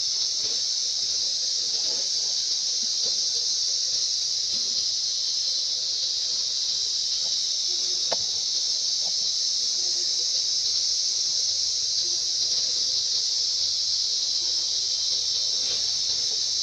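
Steady, high-pitched, unbroken drone of insects in the forest canopy.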